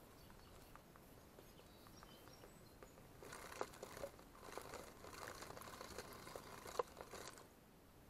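A small animal rummaging in sunflower seeds in a wooden feeder. For about four seconds, starting around three seconds in, there is rustling with quick clicks of seeds and hulls, and one sharper tick near the end.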